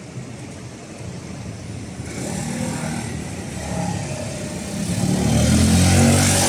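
A motor vehicle's engine passing on a street, getting louder over the last couple of seconds as it comes close.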